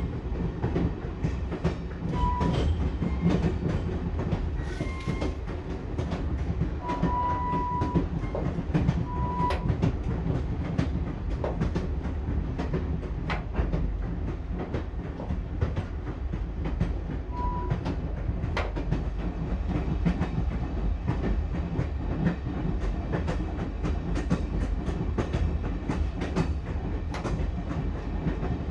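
Passenger train wheels clattering over the rail joints over a steady low rumble of the moving carriage, with a few brief high tones in the first twenty seconds.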